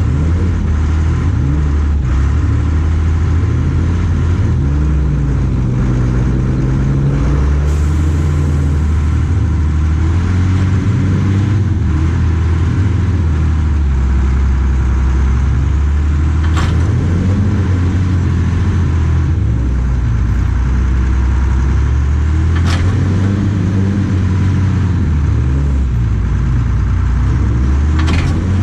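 Small skid steer loader's engine running, its speed shifting up and down several times, with three short sharp knocks spread through the second half.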